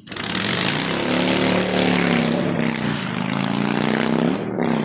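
A motor vehicle's engine running with a loud rushing noise over it, starting abruptly and holding steady.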